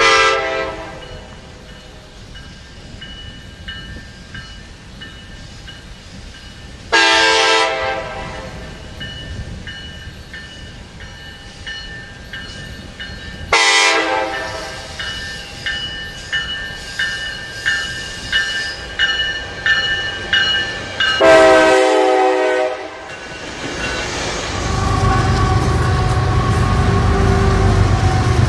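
A commuter train's horn sounds four blasts, each about a second long, as the train approaches and passes, and its wheels click rhythmically over the rail joints between the last blasts. Near the end a Florida East Coast diesel locomotive passes with a steady low rumble.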